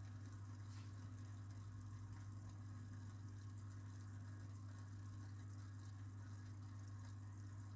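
Faint steady low hum of aquarium equipment running, with a light trickle of water.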